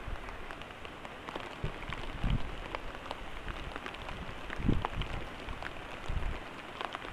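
Steady rain falling, with many separate drop ticks and a few low thumps about two, four and a half, and six seconds in.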